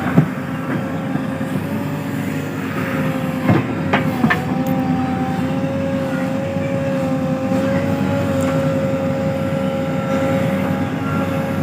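A vehicle engine running with a steady, slightly wavering drone, with a few sharp knocks: one just after the start and a couple about four seconds in.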